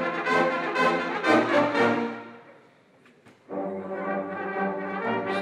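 Military brass fanfare of trumpets and a baritone horn playing held chords: one phrase that fades out about two and a half seconds in, a short pause, then a second phrase.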